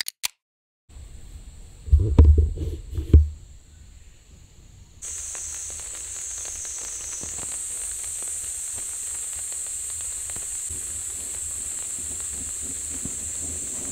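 Meat sizzling in a hot pan: a steady hiss with many small crackles, starting about five seconds in. Before it, a few low thumps.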